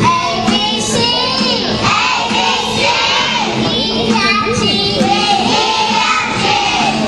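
Young children singing a song together, with a girl's voice at the microphone standing out.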